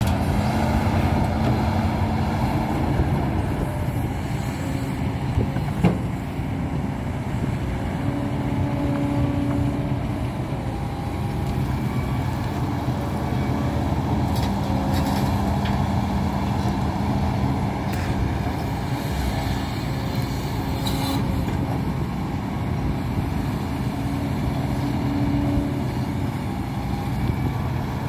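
Hidromek 230LC tracked excavator's diesel engine and hydraulics running steadily under working load while it digs and dumps sand, the engine note shifting every few seconds as the hydraulics load up and ease off. A single sharp knock about six seconds in.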